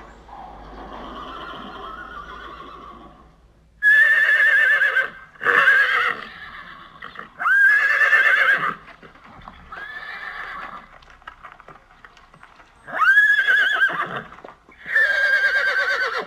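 Horse neighing: a series of about six loud whinnies with a quavering pitch, each half a second to a second and a half long, following a few seconds of quieter sound.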